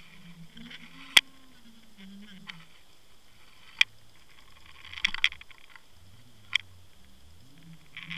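Underwater recording at depth: three sharp clicks, evenly spaced about two and a half seconds apart, over a low wavering hum, with short rushes of hiss about five seconds in and again near the end.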